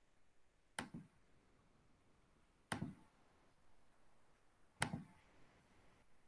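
Three sharp computer mouse clicks about two seconds apart, each a quick double tick, against near silence.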